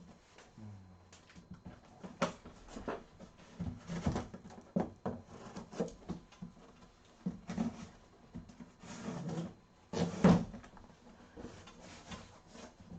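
A cardboard box being slit open with a utility knife and its flaps and packing handled: irregular scrapes, rustles and knocks, the loudest knock about ten seconds in.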